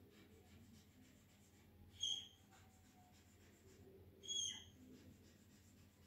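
Whiteboard marker squeaking on the board while zigzag resistor symbols are drawn: two short, high-pitched squeaks, about two seconds in and about four and a half seconds in, over faint quiet scratching.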